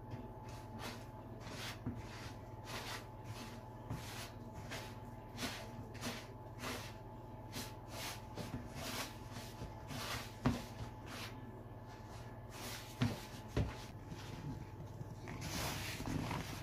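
Hands kneading a crumbly dough of margarine, flour, sugar and eggs in a plastic bowl: soft squishing, rustling strokes about twice a second, with a few sharper knocks against the bowl in the second half.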